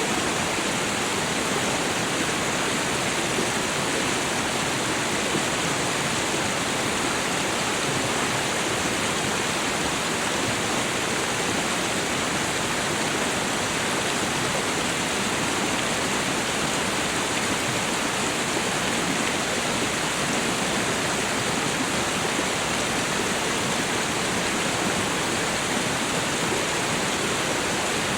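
Meltwater stream rushing steadily over a small waterfall.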